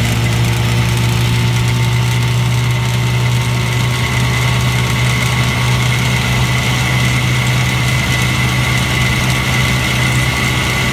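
1957 Johnson 7.5 hp two-stroke twin outboard motor running steadily at an even speed, with a rattle from its hood.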